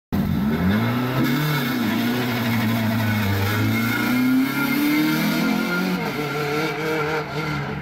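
Renault Clio race car's engine at high revs, accelerating hard uphill. Its pitch rises and drops several times as it climbs and changes gear, and it passes by near the middle.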